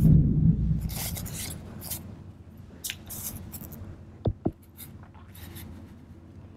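Paper collage pieces being handled and rubbed flat onto a journal page by hand, with a dull thump at the start, scattered paper rustling and rubbing, and two quick clicks about four seconds in.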